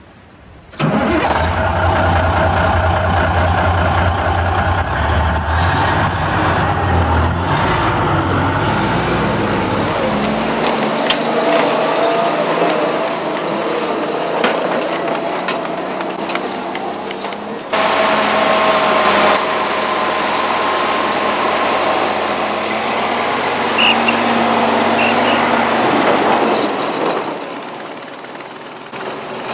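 Engine sound of a 1/6 scale RC M26 Dragon Wagon model truck, starting about a second in and running steadily as it drives, with a sudden change a little past halfway.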